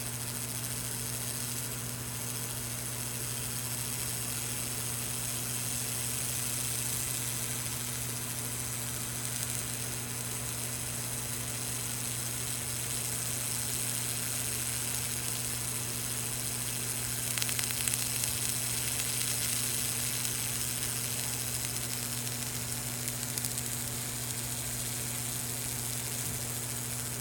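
Handheld laser cleaner stripping the zinc coating from a steel channel: a steady high hiss over a steady low hum, with a short crackle about two-thirds of the way through.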